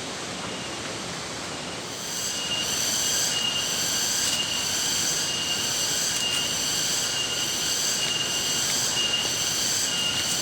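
Steady rush of a waterfall. About two seconds in, a shrill, high-pitched drone with a regular pulse starts over it and keeps going.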